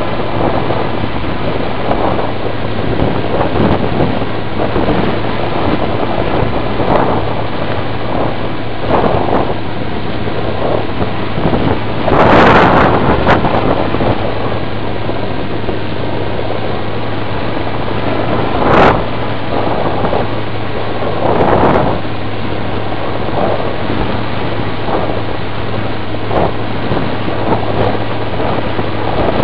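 Wind rushing over the microphone of a camera carried on an RC Easy Star model plane in flight, with a steady hum underneath. The rush swells into louder gusts about twelve seconds in, sharply once near nineteen seconds, and again around twenty-two seconds.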